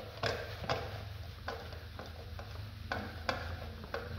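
A rag scrubbing polish onto an old aluminum truck wheel by hand, in short, irregular scratchy strokes about two a second, over a steady low hum.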